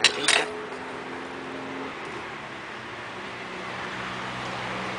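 Steady hum of road traffic, with two sharp clinks of small metal tools on the tiled worktable right at the start.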